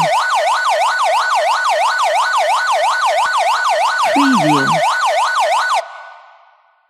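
London police car siren in its fast yelp, the pitch sweeping up and down about four times a second. A short lower falling note sounds about four seconds in, and the siren cuts off near six seconds and dies away.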